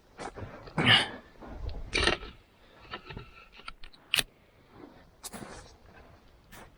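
A few irregular scrapes and knocks, with short quiet gaps between them.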